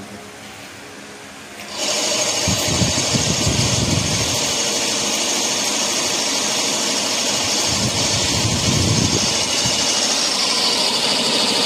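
Bevel-gear mixer grinder, driven by a single-phase induction motor through a belt pulley, switching on about two seconds in and then running steadily with a high whine. A lower noise swells twice while it runs.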